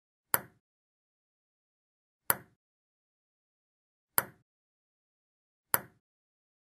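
Ping-pong ball hits: four single sharp clicks, spaced roughly two seconds apart, with silence between them.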